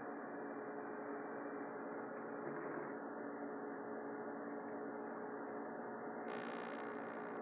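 Steady hum with hiss, holding an even level throughout; a brief higher buzz comes in near the end.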